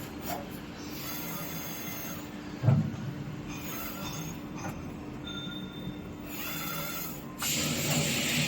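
CNC panel bender running with a steady mechanical hum and a light metallic squeal. There is one heavy thump about a third of the way in, and a louder hiss starts near the end.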